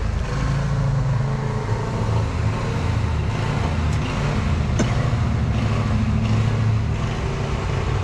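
An engine running steadily, with one sharp click about five seconds in.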